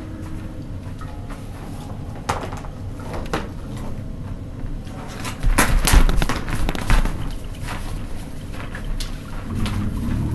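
Light-up hula hoops knocking and bumping as they are spun and handled, a few scattered knocks with the loudest cluster about halfway through, over a steady low rumble.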